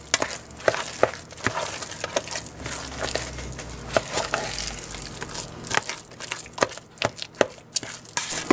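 A big spoon mashing and stirring potatoes in a pressure cooker's inner pot, with irregular knocks and scrapes of the spoon against the pot.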